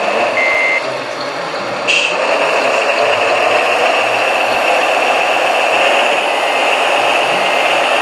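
Radio-controlled MAN tipper truck's sound module giving reversing beeps, which stop about a second in. About two seconds in, a steady high whine with running noise takes over.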